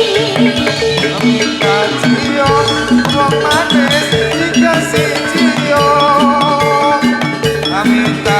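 Live Javanese gamelan music accompanying a jathilan dance: metallophones play a steady run of repeated notes over drums, with a melody line that bends in pitch.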